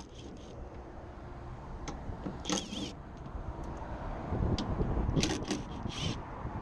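Steady low rumble of passing traffic, with short metallic clicks and scrapes about two and a half seconds in and again a few times near the end, as Torx bolts are worked out with a T40 bit.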